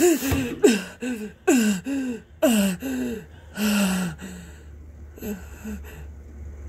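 A person's voice making a run of short wordless vocal sounds for a hand puppet being washed, each one sliding down in pitch. There are about eight in the first four and a half seconds, then a few fainter ones.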